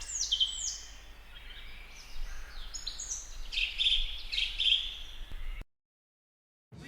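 Wild winter birds calling over steady background noise: high notes that slide downward in the first second, then a run of harsher, buzzier calls. The sound cuts off suddenly about a second before the end.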